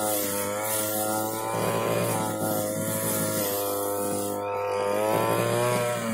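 Backpack brush cutter's small petrol engine running at high revs while cutting grass, its pitch wavering a little with the throttle. Near the end the pitch begins to drop as the engine is eased off.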